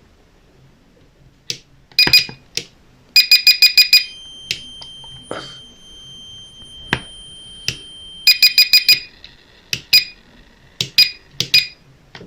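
Continuity tester beeping as the kill-switch contacts close: several bursts of rapid short high beeps, and a fainter steady beep held for about four seconds in the middle.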